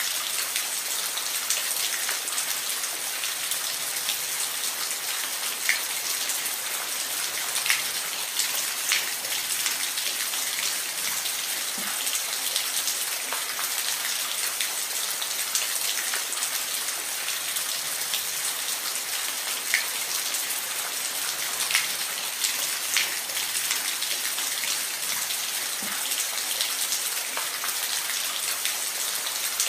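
Steady rain falling, a continuous hiss with individual drops ticking sharply here and there.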